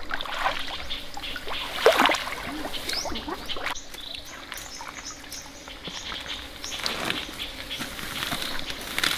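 Irregular splashing and sloshing in shallow water, in short uneven bursts.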